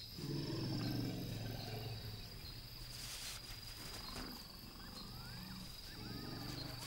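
African elephant's low rumbling call, a long one near the start and a shorter one near the end, over a steady high insect trill.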